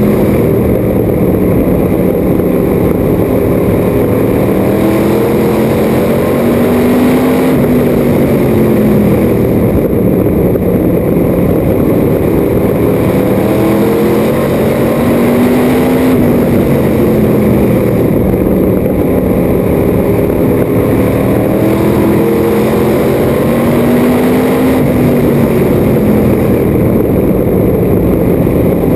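Modified stock car's engine at racing speed on track, heard from inside the cockpit. The engine note rises and falls in long sweeps about every eight seconds, once per lap, over steady wind and road noise.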